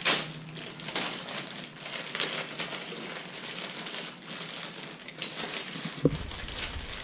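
Clear plastic parts bag crinkling and rustling as it is handled and opened, in a string of short crackly rustles. A brief soft knock about six seconds in.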